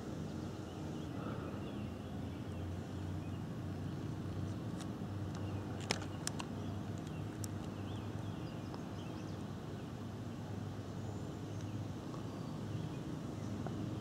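Quiet outdoor background: a steady low hum, with faint chirps and a couple of sharp clicks about six seconds in.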